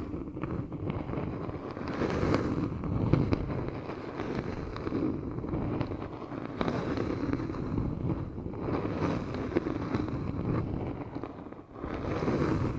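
Close-miked ASMR trigger sounds: dense rustling and crackling made of many fine ticks, swelling and easing every second or two.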